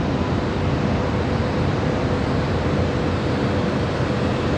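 Steady aircraft noise over an airfield, with a faint steady hum running through it.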